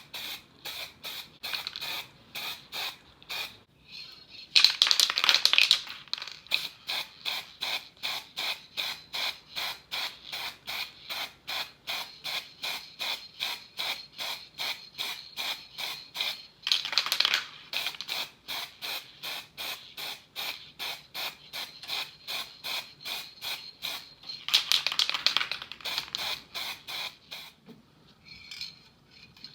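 Hand scraping on a small model car part, in even back-and-forth strokes about three a second. Three times the strokes come faster and louder for a second or two.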